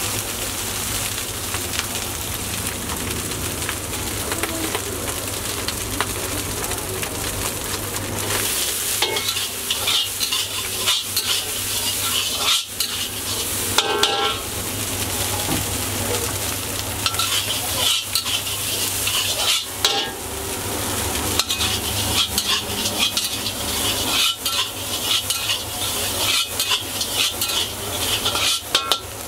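Chicken fried rice frying in a hot wok: a steady sizzle, with a steel ladle scraping and clinking against the wok again and again as the rice is stirred and tossed.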